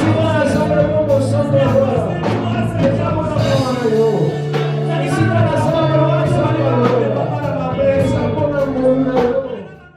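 Church worship music: a band with steady bass notes and drum hits under a singing voice, fading out near the end.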